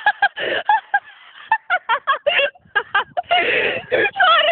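Young women laughing and shrieking in a run of short, high-pitched bursts, with a louder shriek a little after three seconds and a wavering squeal near the end.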